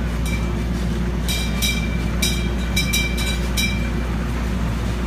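Kiddie carnival ride running with a steady low rumble from its drive, and from about a second in a quick series of several sharp metallic rings, like a small bell being struck.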